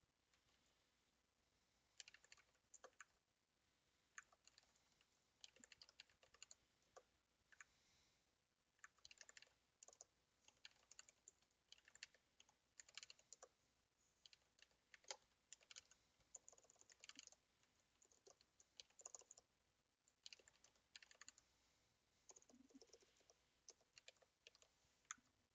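Faint computer keyboard typing: runs of quick keystroke clicks separated by short pauses.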